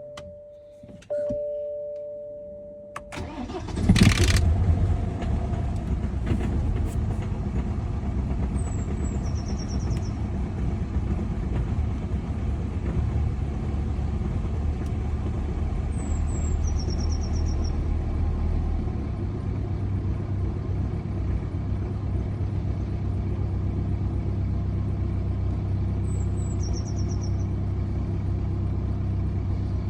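A chime sounds about a second in. Then the BMW 1 Series' N47 four-cylinder diesel cranks and fires about three to four seconds in, and settles into a steady idle on a cold start, which the owner calls a rough idle.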